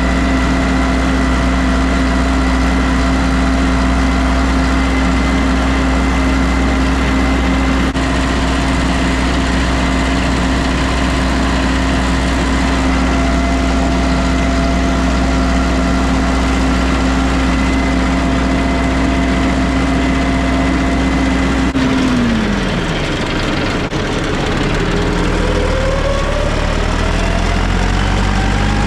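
A farm machine's engine running steadily with a thin high whine over it; about 22 seconds in the engine speed drops sharply, then climbs back up near the end.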